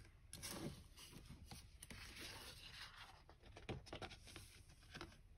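Faint, soft brushing of a small brush sweeping stray embossing powder off card stock, with a few light clicks and taps of handling.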